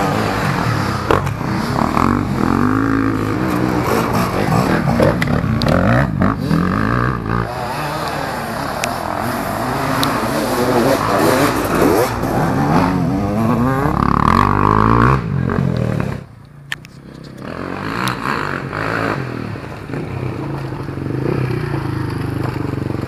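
Enduro dirt bike engines revving hard under load as the bikes climb a steep dirt bank, the pitch rising and falling with the throttle. The sound drops away briefly about sixteen seconds in, then the engines are heard again.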